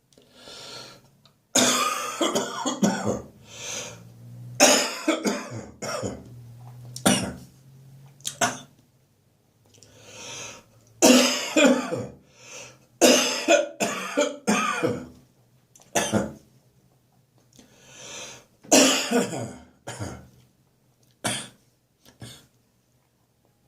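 A person's congested cough on waking: repeated coughing fits, each a run of several coughs, with quiet pauses between. Near the end it tails off into single coughs.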